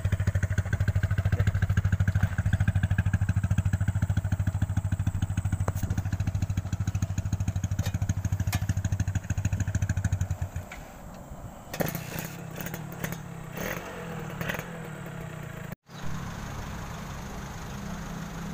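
A motorcycle engine idling close by with an even, rapid putter, shut off about two thirds of the way through. A few clattering knocks follow, and after a short break a quieter, steadier engine hum carries on.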